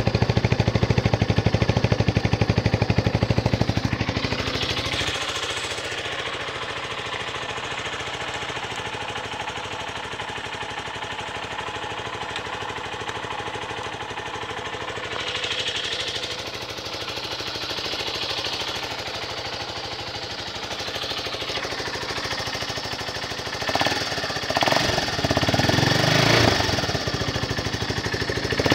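Zongshen 250 motorcycle engine idling with an even, pulsing rhythm. It is louder for the first few seconds, drops back and holds steady through the middle, and grows louder again near the end.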